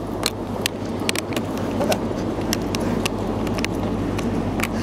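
Steady low hum of a train's engine, broken by irregular sharp clicks and knocks.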